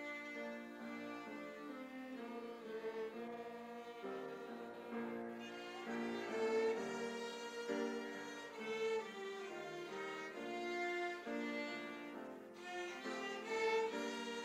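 Instrumental music: a bowed string instrument plays a melody in held notes.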